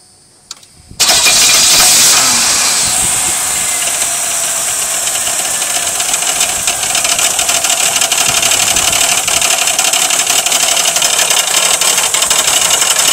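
Car engine starting about a second in after a short click, revving up briefly, then idling steadily with a rapid, even knock running through it.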